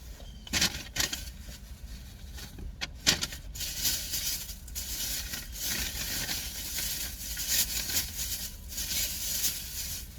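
Close rustling and crackling, like handling noise, with a few sharp clicks in the first three seconds and a denser crackle from about three and a half seconds in.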